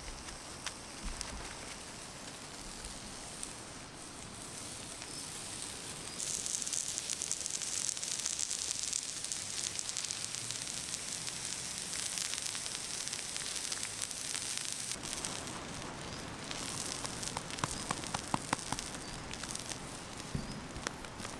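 Campfire crackling with a steady hiss that grows louder about six seconds in, and a few sharp pops near the end.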